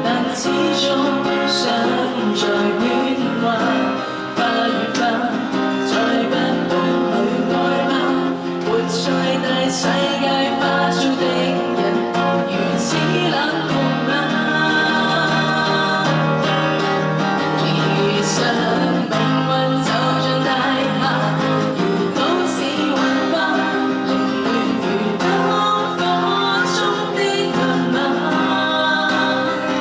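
A song with a singing voice over guitar accompaniment, playing continuously.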